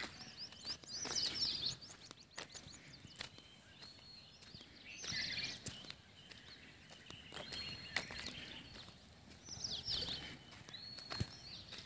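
A songbird singing a repeated phrase: a short level whistle, then a quick burst of high chirps, about every four seconds. A few soft knocks can be heard under it.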